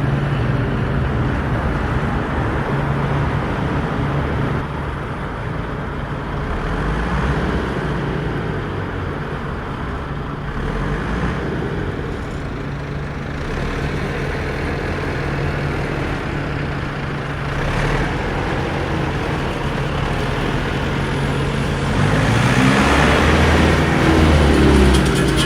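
Off-road 4x4's engine running steadily, its pitch rising and falling and getting louder near the end as it is revved.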